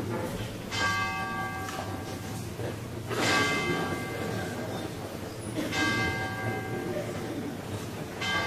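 A bell struck four times, about two and a half seconds apart. Each stroke rings on and fades. A low steady hum lies underneath.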